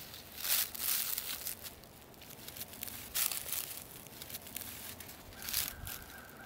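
Footsteps crunching and crackling through dry leaf litter and dead grass, at an uneven pace.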